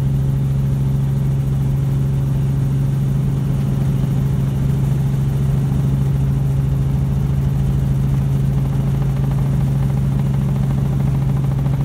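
Robinson R44 helicopter heard from inside its cabin: the steady drone of its piston engine and rotor, with a strong unchanging low hum over a rumble, on approach to land.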